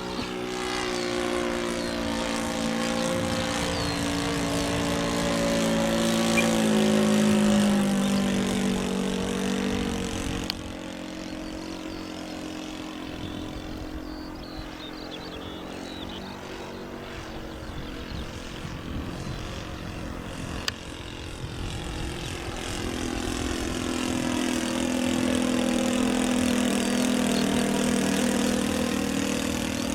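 Radio-controlled Seagull DH.60 Gipsy Moth model plane's OS 95 glow engine running in flight. It grows louder and drops in pitch as it passes about seven seconds in, fades as it flies off, then comes back louder near the end.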